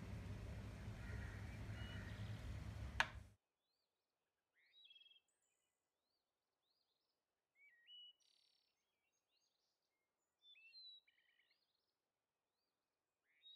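Low steady background noise with one sharp click about three seconds in. The noise then cuts off abruptly to silence, and a few short bursts of birdsong chirps sound over it, from a nature-sounds track.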